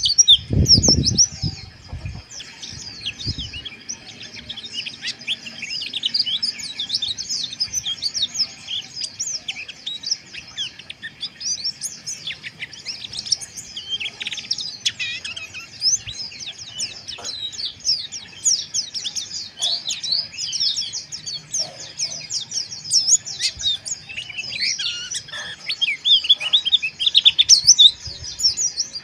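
Several white-eyes (pleci) twittering in a dense, rapid, harsh chatter (ngeriwik), with many quick high chirps overlapping throughout. A few low thumps sound in the first two seconds.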